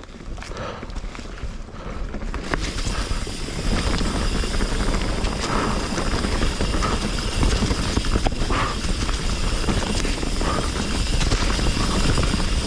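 A Commencal Meta HT hardtail mountain bike picking up speed downhill: wind rushing over the microphone and knobby tyres rolling on the dirt trail, with scattered knocks and rattles over bumps. The rushing grows louder over the first few seconds as speed builds, then holds steady.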